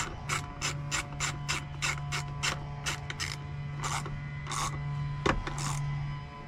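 Ratchet clicking in an even run, about three clicks a second, that gives way after about three seconds to a few slower rasping strokes. A steady low hum runs underneath.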